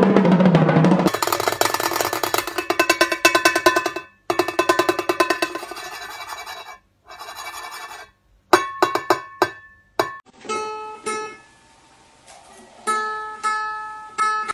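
A drum kit struck in a fast roll, then sharp metallic taps on a cymbal from a cockatoo's beak, each ringing briefly. Near the end a small bird plucks the strings of an acoustic guitar, sounding single notes a few at a time that ring out.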